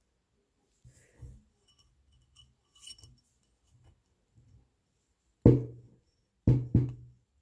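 Coiled copper wire ring clinking faintly against a steel ring mandrel as it is slid on, then three loud knocks in the second half, the last two in quick succession.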